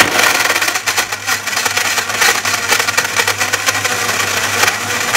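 Personal blender's motor running steadily at full speed, its blades churning a thick smoothie of almond milk, berries, spinach and avocado in the tall cup, with a constant low hum under the whir.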